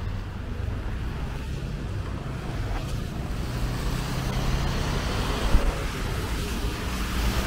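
City street traffic on wet roads: engines rumbling low and tyres hissing as vehicles pass, with one brief thump about five and a half seconds in.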